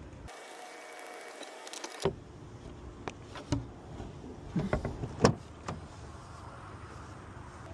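A series of sharp clicks and knocks, several in quick succession about halfway through, as a locksmith works tools on a locked car door.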